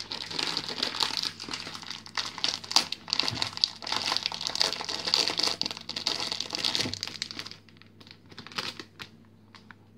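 Packet of fine semolina being handled and pulled open: a dense crinkling rustle of the bag for about seven and a half seconds, then a few scattered light crackles.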